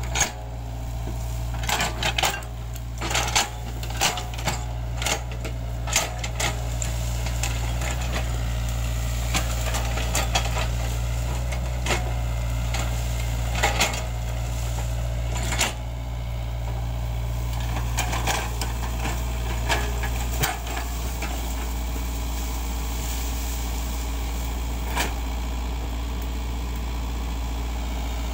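Sany SY55C mini excavator's diesel engine running steadily while it works, with frequent sharp knocks and cracks from the bucket and arm in the first half and only a few later on.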